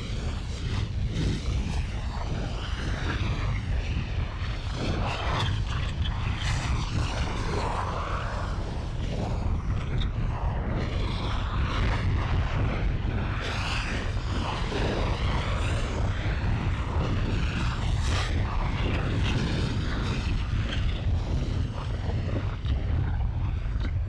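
Volcano and lava fire sound effect: a continuous deep rumble with crackling and hissing noise over it.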